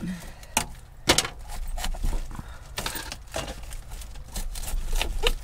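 Knife cutting through a raw cauliflower to break it into florets: a series of irregular sharp cracks and knocks.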